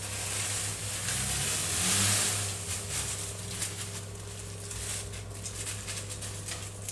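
Crushed digestive biscuit crumbs tipped into a pan of melted butter: a rustling hiss, loudest about two seconds in, then light scrapes and taps. A steady low hum runs underneath.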